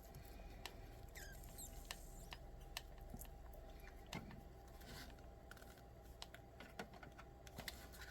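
Faint scattered clicks and light taps of small kit parts and tools being handled on a workbench, about one or two a second, over a faint steady hum.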